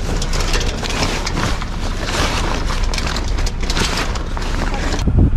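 Wind buffeting the microphone with a steady rushing hiss as a small sailboat sails along under sail. The high hiss drops away abruptly near the end, leaving the low wind rumble.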